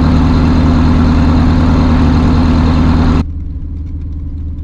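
BushCat light-sport aircraft's piston engine running steadily at idle, loud at first; about three seconds in the sound abruptly drops in level and turns duller.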